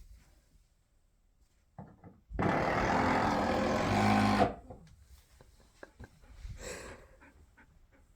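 A power tool running beneath the floor during subfloor work: a brief burst about two seconds in, then a steady run of about two seconds that stops abruptly, and a fainter short burst near the end.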